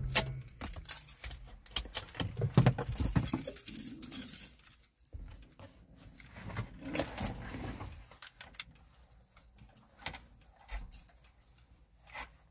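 Keys jangling, with scattered clicks and rustling from handling things inside a parked car. The clatter is busiest in the first few seconds and dies down after about eight seconds.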